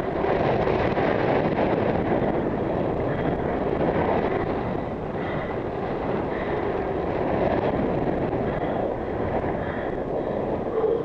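Steady rushing wind noise over a helmet-mounted action camera's microphone on a road bike moving at about 22 mph, swelling and easing slightly.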